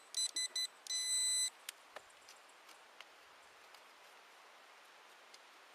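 Xpointer pinpinter beeping: several short, quick beeps, then one longer beep that stops about a second and a half in, followed by a few faint clicks.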